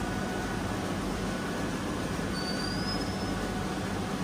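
Steady hum of computer-to-plate plate-making machinery running, with a faint short rising whistle about two seconds in.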